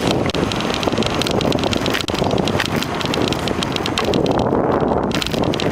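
Wind rushing over the microphone on a moving bicycle, steady throughout, with many small rattles and knocks mixed in.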